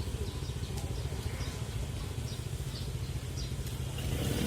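Street traffic, mostly motorbike engines, running as a steady low rumble that grows louder near the end.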